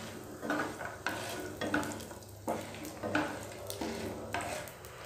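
Wooden spatula stirring peanuts, dried red chilli, cumin and mustard seeds frying in oil in a nonstick pan, with repeated short scraping strokes about once or twice a second over a light sizzle. This is the tempering stage, the spices and nuts being fried until the peanuts roast.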